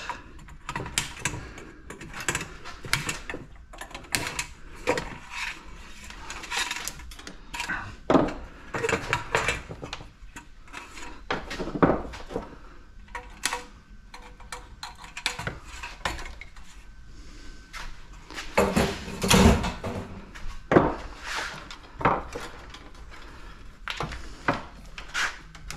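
Hand tools and small metal parts clinking and clattering on a workbench as a small appliance is taken apart to salvage its wire, in irregular bursts of handling noise. A heavier knock with a low thud stands out about three-quarters of the way through.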